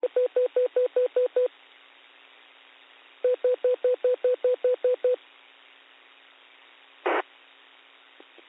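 Alert beeps over a narrowband FM two-way radio channel: two quick trains of short, high tone pulses, about five a second, with receiver hiss between them, then a brief burst of static about seven seconds in. They are the attention tones that precede a dispatcher's broadcast.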